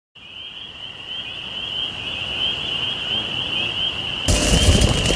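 A high, trilling tone swells steadily louder. About four seconds in, music with a drum beat kicks in over it.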